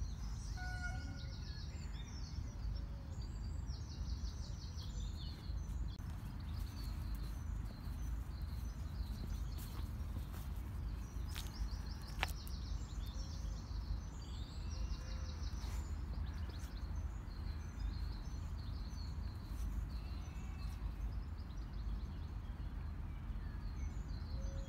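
Outdoor ambience: a steady low wind rumble on the microphone, with small birds chirping and trilling in short bursts now and then, and one sharp click about halfway through.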